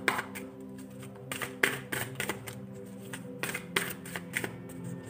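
Tarot deck being shuffled by hand: irregular quick flicks and slaps of cards against each other. Background music with steady held notes plays underneath.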